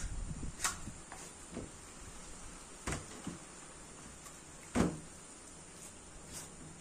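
A chef's knife cutting up a raw chicken on a stainless-steel table: a few sharp knocks of the blade and meat against the table, the loudest about two-thirds of the way through, with soft handling sounds between.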